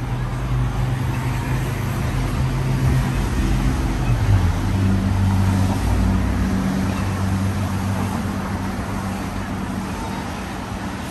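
Street traffic close by: a motor vehicle's engine hums low and steady, its pitch shifting around the middle, over a continuous hiss of traffic noise.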